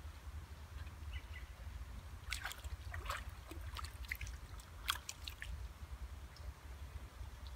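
Water splashing and dripping around a landing net holding a carp in the shallows: a cluster of short splashes in the middle, the sharpest about five seconds in, over a low steady rumble.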